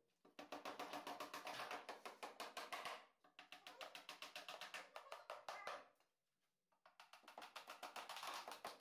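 Faint, rapid, evenly spaced tapping in three runs, broken by short pauses.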